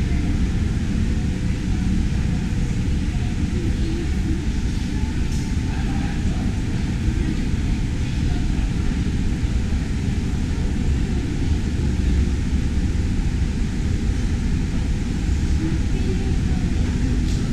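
Steady low rumble of a boat ride's flume, its water and track machinery running as the boat moves forward through the station, with faint voices in the background.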